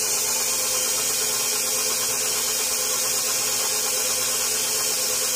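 KitchenAid Professional 5 Plus stand mixer running steadily, its wire whip beating a soap mixture in the steel bowl.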